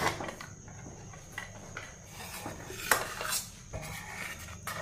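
Stainless steel pressure cooker lid clicking as it is twisted open, then a steel spoon clinking and scraping against the pot while stirring cooked grain, with a few sharp clinks about three seconds in.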